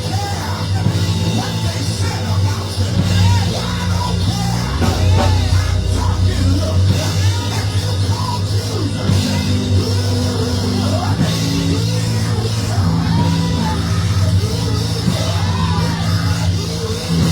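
Live church band music with long held bass notes and drums, and voices singing and calling out over it.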